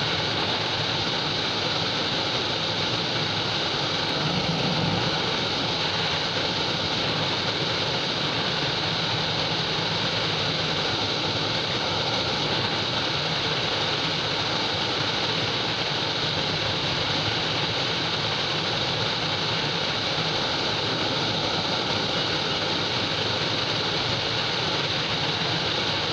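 Steady rush of wind noise over a motorcycle's engine as the bike cruises at about 90 to 100 km/h, heard through a bike-mounted action camera's microphone; the hiss is the loudest part and does not change.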